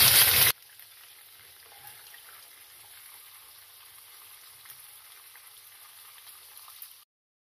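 Oil sizzling faintly around beef kababs shallow-frying in a pan, an even hiss with a few small crackles. It cuts off suddenly near the end.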